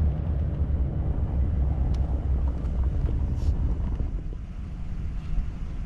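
Low, steady rumble of a car heard from inside its cabin as it drives, easing off a little after about four seconds.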